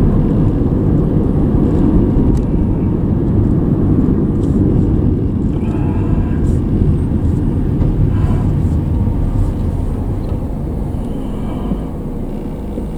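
Car engine and road noise heard from inside a moving car: a steady low rumble that eases a little near the end.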